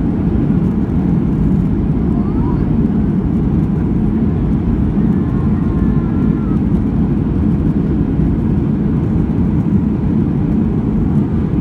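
Steady low rumble inside the cabin of a Boeing 737-800, its CFM56 turbofan engines and airflow heard from a seat over the wing.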